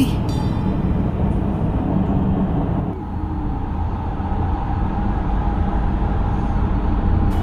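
Road noise inside a moving van's cabin: a steady low rumble of tyres and engine, dipping slightly about three seconds in.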